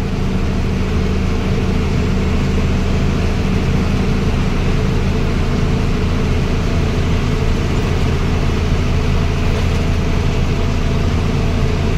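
Loaded heavy truck's diesel engine running steadily at cruising speed, heard from inside the cab as a constant low drone with road and tyre noise.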